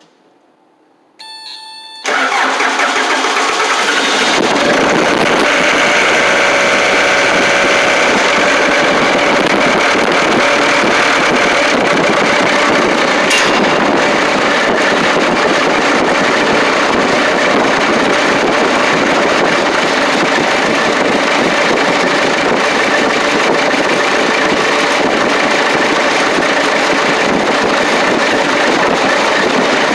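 A short steady tone, then the 1993 Case 1845C skid loader's diesel engine cranks and catches about two seconds in on a cold start. It then runs steadily, heard close to its exhaust outlet.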